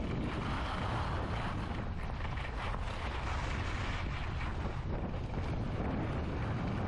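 Steady wind rushing and buffeting over the microphone of a camera carried by a skier on a downhill run, mixed with the hiss of skis sliding on snow.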